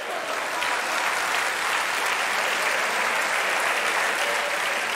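A large theatre audience applauding: dense, steady clapping that swells in the first half second and then holds.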